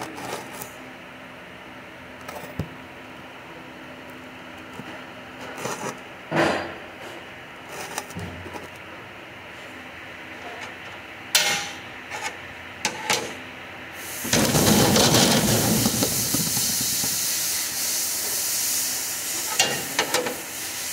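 Metal tools and bolts knock and clink on a steel workbench over a steady shop hum. About two-thirds of the way in, a loud hiss starts and runs for about six seconds, heaviest in its first two.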